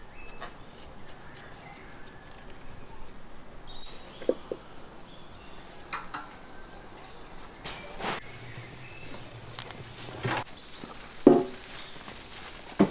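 Scattered short knocks and clicks from food and cooking gear being handled, over a faint outdoor background; the loudest knock comes about eleven seconds in.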